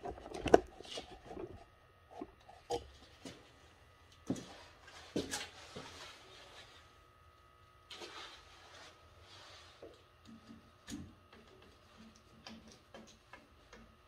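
Scattered knocks, clicks and scrapes of a PVC discharge pipe being handled and fitted to a boiler's pressure relief valve. The loudest is a sharp knock about half a second in.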